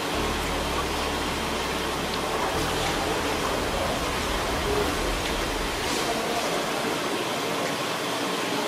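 Steady, even rushing noise like running water, with a few faint clicks.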